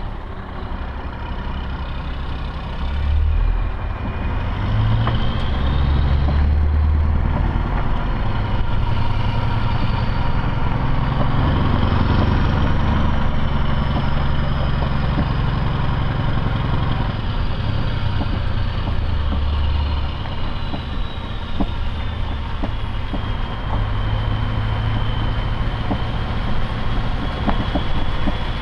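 Scania R500's V8 diesel engine heard from inside the cab as the truck drives, its note rising and falling several times with throttle and gear changes. A faint high whine rises and then slowly falls over the stretch.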